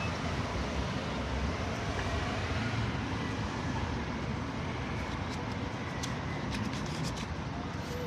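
Steady street traffic noise, with a few light clicks from about five seconds in.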